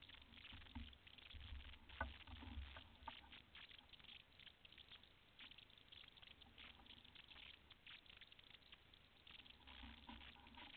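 Near silence: faint scattered crackling and a low rumble, with one sharper click about two seconds in.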